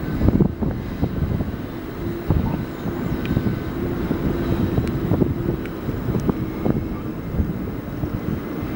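Cat 907H compact wheel loader's diesel engine running steadily as it drives carrying a long steel pipe on its forks, with wind buffeting the microphone and a few short knocks.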